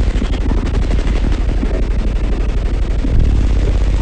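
A wall of six SoundQubed HDC3 15-inch subwoofers playing deep bass at very high volume inside a truck cab. The bass comes through as a dense, fast crackling rattle rather than clean music.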